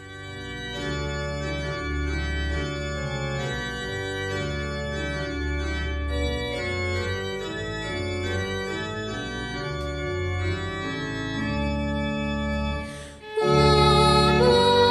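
Electronic organ playing a slow passage of held chords over sustained bass notes. About 13 seconds in it breaks off, and a woman starts singing with a violin.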